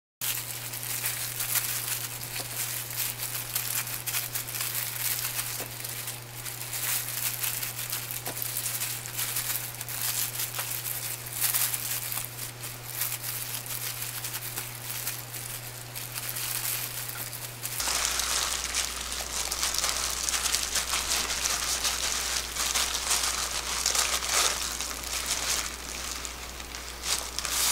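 Thin disposable plastic food gloves crinkling and dried laver (gim) rustling as hands press rice onto the sheet and roll a slim gimbap, with many small crackles. A steady low hum runs underneath and drops lower about two-thirds of the way through.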